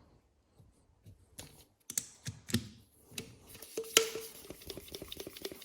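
Hand tools clicking and knocking against a motorcycle wheel as the tire is worked on, with one sharp knock about four seconds in followed by a run of rapid light clicks.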